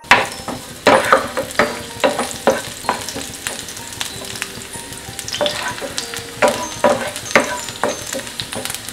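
Chopped garlic sizzling in hot oil in a nonstick frying pan, stirred with a wooden spoon that scrapes and knocks against the pan in repeated strokes about twice a second.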